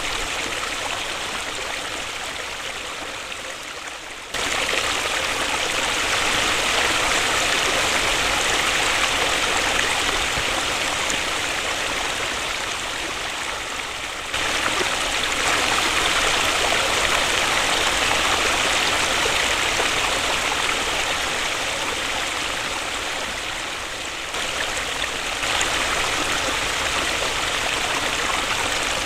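Waterfall: a steady rush of falling water. The loudness sags slowly and then jumps back up suddenly three times, about every ten seconds.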